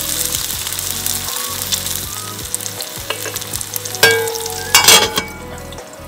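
Hamburger patties sizzling in a cast-iron skillet. About four seconds in, a metal pan set on top as a lid clangs and rings against it, with a louder clatter about a second later, and then the sizzle goes quieter under the cover.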